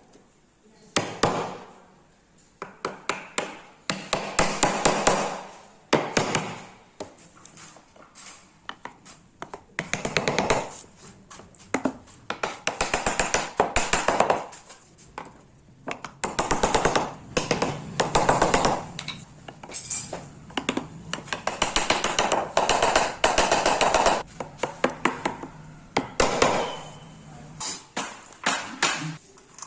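A hand tool working wood in repeated scraping strokes with sharp taps and clicks among them, pausing between strokes.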